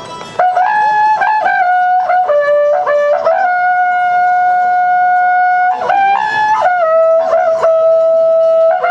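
Wakrapuku, the Andean trumpet of coiled bull-horn segments, played solo. It plays a melody of short notes and two long held notes, the longer one about two seconds in the middle of the phrase.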